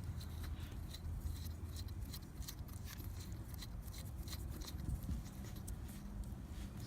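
Quick, irregular small clicks and scratches of a tire valve core being screwed back into the valve stem with a small valve-core tool.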